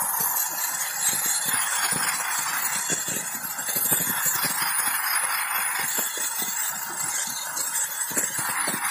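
Compressed-air sandblasting gun blasting a wooden louvred shutter: a steady rushing hiss of air and abrasive, with irregular crackling underneath.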